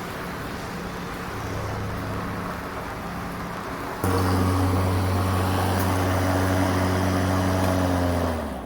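Greenworks Pro 80V electric lawn mower running while mowing, a steady hum of several tones. About four seconds in it gets suddenly louder with a stronger low hum, and near the end the motor winds down as it is switched off.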